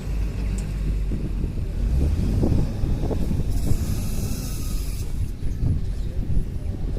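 Heavy diesel engine of a motor grader running under load, a steady low rumble with some rattling. A hiss lasting about a second and a half comes in midway.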